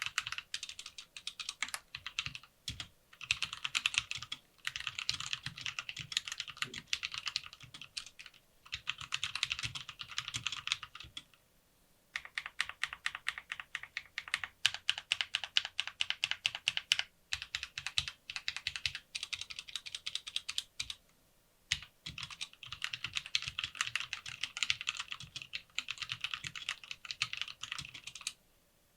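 Typing on a Lofree Wanderfree keyboard: fast runs of keystroke clicks in bursts, broken by short pauses a few times.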